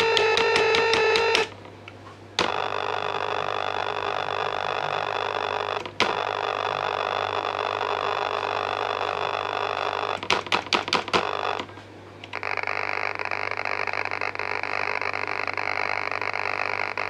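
Simple electronic tone generator sounding buzzy tones through a small speaker, switched on and off from keyboard keys. Each tone is held for a few seconds and starts and stops with a click. About two-thirds of the way through comes a quick stutter of short on-off beeps, and near the end a brighter, different-pitched tone follows.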